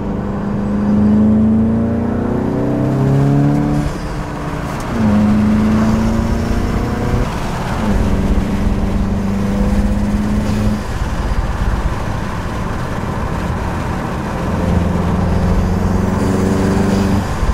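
Volkswagen Golf GTI Mk7.5's turbocharged 2.0-litre four-cylinder accelerating under boost, heard from inside the cabin, with the induction sound of an Integrated Engineering stage 1 intake and turbo inlet. Engine pitch climbs and falls abruptly about four and eight seconds in, eases off in the middle, and climbs again near the end.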